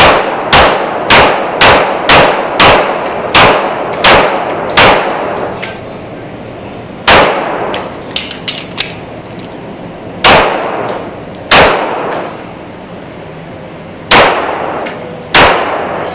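Pistol shots on an indoor range, each echoing off the walls: a fast string of about nine shots roughly half a second apart, then five slower, spaced-out shots. A few small faint clicks come between them about eight seconds in.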